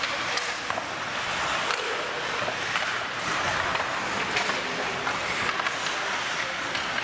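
Ice hockey play on the rink: skate blades scraping the ice and scattered sharp clacks of sticks and puck over a steady hiss of rink noise.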